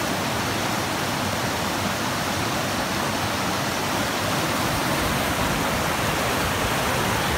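A fast rocky creek rushing and splashing over boulders: a steady, unbroken rush of water.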